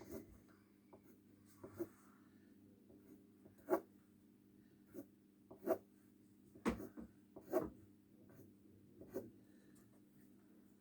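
Faint scratching of drawing on paper, in short separate strokes every second or so, over a low steady hum.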